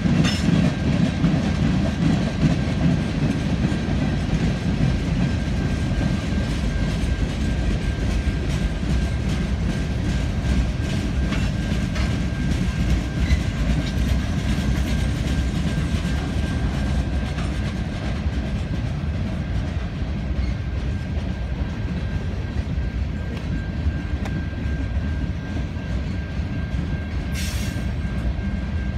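Freight cars (tank cars, boxcars and gondolas) rolling past, with a steady rumble of steel wheels on the rails and irregular clicking as the wheels cross rail joints. A faint steady high tone runs under it.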